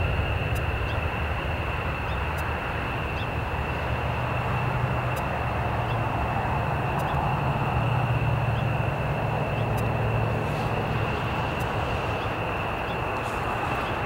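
Jet engines running on an airfield: a steady distant rumble with a constant high whine, from an Airbus A320 slowing on its landing rollout and an F-15 fighter taxiing.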